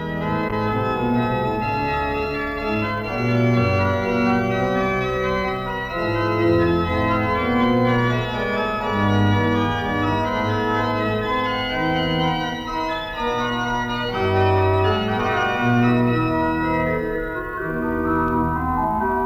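Background organ music: sustained chords over a bass line that changes every second or so.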